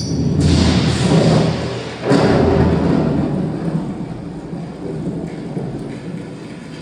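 Zebronics Zeb-Juke Bar 9400 Pro 5.1 soundbar and subwoofer playing a Dolby surround test track at full volume: two deep rumbling surges, the second about two seconds in, each fading away slowly.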